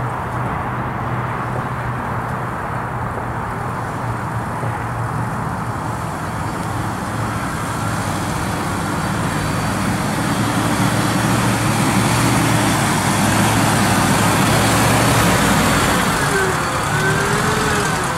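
Jeep Wrangler TJ's engine running at low speed as it crawls over dirt mounds, getting louder as it approaches and drives close past.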